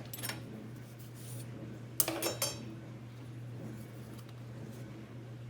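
Small hard objects handled on a workbench: a few light clicks, then a sharp clack about two seconds in with a brief rattle, over a steady low hum.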